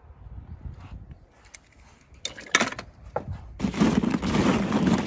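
A few sharp clicks, then from about three and a half seconds in a loud, dense clatter of hollow plastic ball-pit balls knocking against each other.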